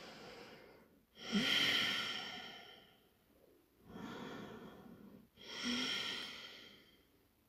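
A woman breathing slowly in and out through the nose in a yoga pose, audible as about four soft breaths. The second and fourth are the loudest, and each fades away.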